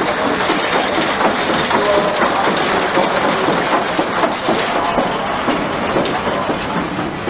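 Large antique steel-wheeled tractor passing close with its engine running: a loud, dense, continuous mechanical clatter of machinery and steel wheels.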